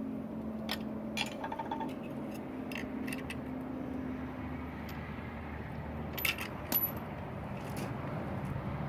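Scattered light metallic clinks and taps as tools and grinder parts are handled while the angle grinder's wheel is being swapped. A sharper cluster of clinks comes about six to seven seconds in, over a faint steady low hum.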